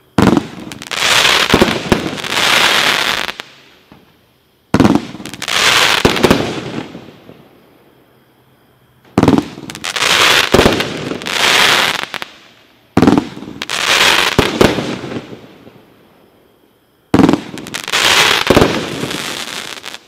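Black Cat consumer aerial firework cake firing five shots about four seconds apart. Each is a sharp bang followed by a crackling hiss that fades over about three seconds.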